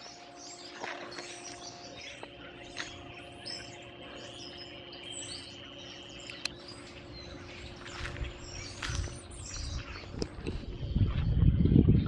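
A flock of birds chirping and calling, many short overlapping calls. A low rumble rises from about eight seconds in and is the loudest sound near the end.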